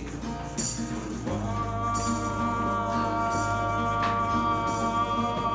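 Live acoustic band music between sung lines of a song, with a shaker-like rattle keeping an even beat. A long held note enters about a second in.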